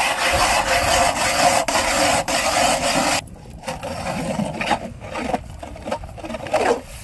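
Ice auger grinding down into lake ice, a loud rhythmic scraping at about three strokes a second. About three seconds in it drops suddenly to quieter, scattered scraping.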